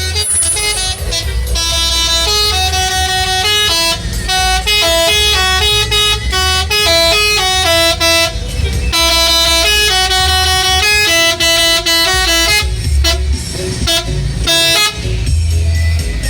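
Telolet bus horn, a multi-tone air horn, playing a melody of stepped notes in phrases with short breaks between them, over loud music with a heavy bass beat.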